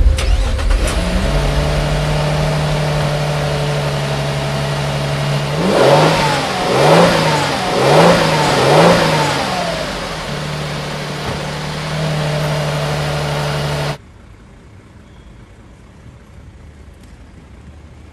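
2022 Lexus LX's twin-turbo V6 settling from a start-up flare into idle, then revved four times in quick succession and back to a steady idle. The engine sound cuts off abruptly near the end, leaving a faint low hum.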